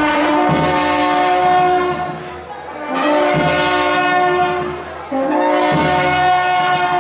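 Serbian trubači brass band playing three long held chords in a row, each a couple of seconds long and separated by a brief dip, with a deep tuba note coming in under each chord.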